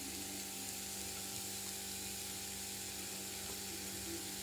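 Faint, steady sizzle of grated beetroot cooking in a little oil in a pan, under a steady low hum.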